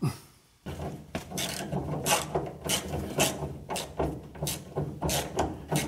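Ratchet wrench clicking in quick back-strokes, about two to three a second, starting about half a second in, as the fuel tank strap bolts are tightened to pull the tank up against its seal.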